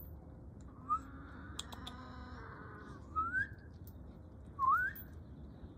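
Three short rising whistles about a second and a half apart, a person whistling to call a dog, the second and third louder than the first. A fainter drawn-out sound runs underneath in the first couple of seconds.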